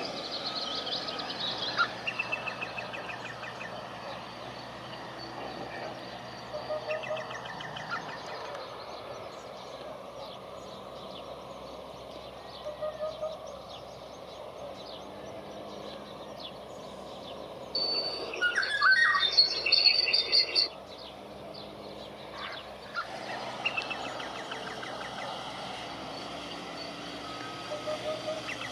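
Wild birds calling and chirping outdoors, scattered short notes over a steady background. About 18 seconds in comes a louder, rapid run of high calls lasting about three seconds.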